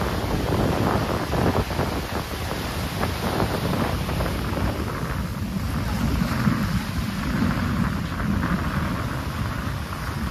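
Wind blowing hard across the microphone, a steady rumbling noise with brief gusts in the first few seconds.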